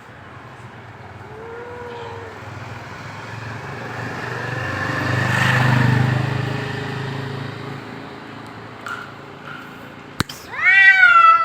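Cats in a fighting standoff, growling low and letting out drawn-out yowls that swell to a peak about six seconds in and fade. Near the end one breaks into a loud, sharp yowl.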